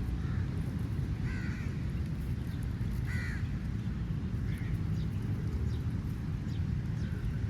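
Crow cawing, about four short calls spread over the first five seconds, over a steady low rumble.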